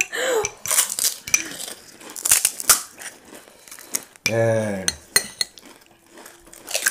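Spoons clinking and scraping on china plates while crisp puri shells are cracked open and filled for pani puri, a scatter of short taps and clicks. About four seconds in, a brief voiced sound from one of the eaters, falling in pitch.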